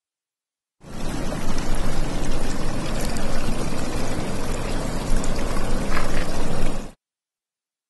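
Running water, a steady rushing noise that starts abruptly about a second in and cuts off suddenly about a second before the end.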